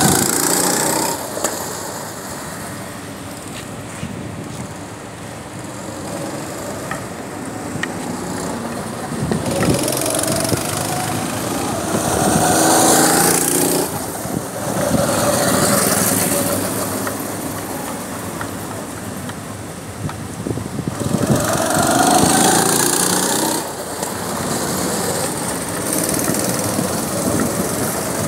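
Go-kart engines running around the track, revving up and easing off in repeated waves as karts accelerate out of corners and pass by, each surge rising in pitch.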